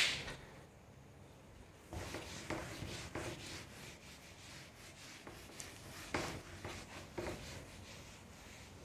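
A whiteboard being wiped clean by hand, with faint, irregular rubbing strokes. A sharp click comes right at the start.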